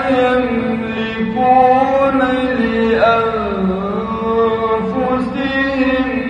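A male Quran reciter's voice in melodic mujawwad (tajweed) style, holding long ornamented notes whose pitch bends and glides up and down.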